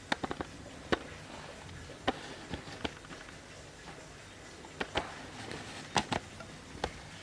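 Irregular sharp clicks and knocks, a quick flurry at first and then single ones or pairs every second or so, as of a wooden mantel clock being handled.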